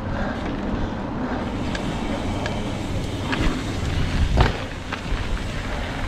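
Trek Fuel EX 7 mountain bike riding over a dirt trail: a steady rumble of tyres and wind noise on the camera microphone, with scattered light clicks and rattles and one sharp knock about four and a half seconds in.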